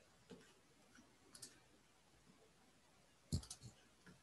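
Faint clicking at a computer: scattered single and double clicks, then a quick run of clicks near the end, the loudest.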